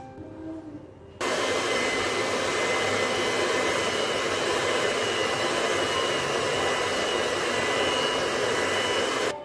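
Electric hand mixer with dough hooks running steadily at one speed, kneading bread dough in a bowl. It switches on about a second in and cuts off suddenly near the end.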